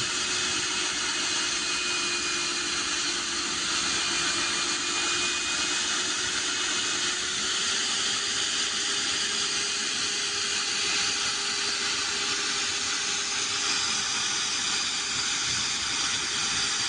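Concrete core cutting machine (diamond core drill) running steadily: an even hiss with a faint steady whine.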